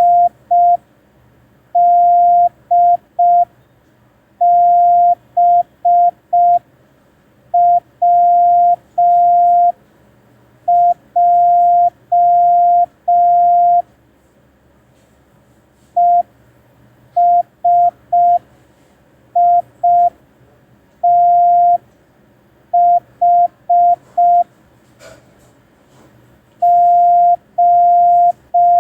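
Morse code practice tone: one steady pitch keyed on and off in short dots and longer dashes, sent slowly as separate letters with pauses between them for a copying exercise.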